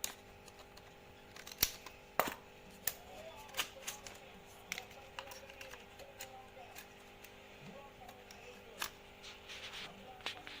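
Scissors snipping packaging: a series of sharp, irregular clicks and snaps, a few seconds apart, with the loudest near the start and about two seconds in.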